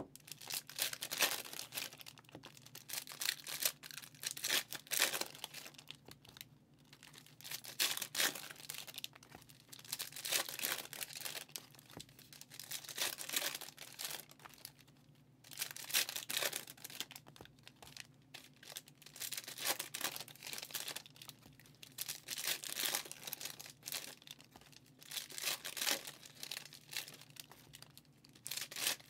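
Foil trading-card packs being torn open and their wrappers crinkled, in repeated bursts of rustling a few seconds long with short pauses between, over a faint steady low hum.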